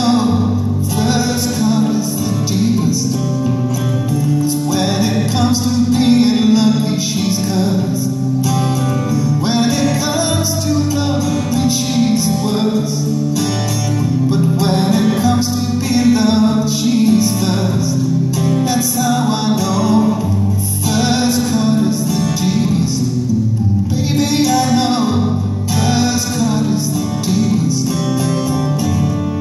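A man singing live while playing an acoustic guitar.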